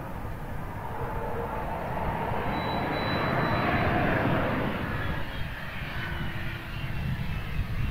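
A fixed-wing aircraft's engines running close by with a faint high whine. The noise swells to a peak about halfway through, then eases.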